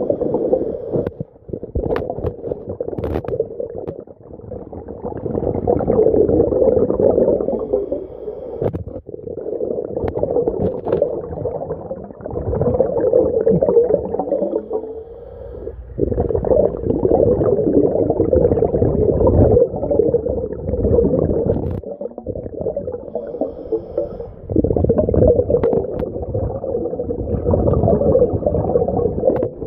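Scuba regulator breathing heard underwater: muffled rumbling and gurgling of exhaled bubbles, coming in surges of several seconds with short breaks between them, one per breath.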